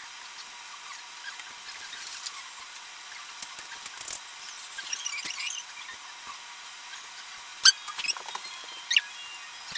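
Small handling noises from painting with a brush: light scratching and a few sharp clicks of the brush against the paper and the dishes of paint, the loudest click near eight seconds in, over a steady hiss.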